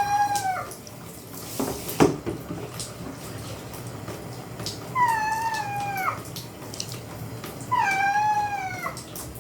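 Domestic cat meowing three times while being bathed, each meow about a second long, rising then falling in pitch. A sharp knock about two seconds in is the loudest single sound.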